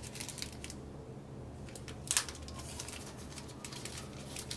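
Plastic packaging rustling and crinkling as drone accessories are handled and unpacked, with scattered light clicks and one sharper click about two seconds in.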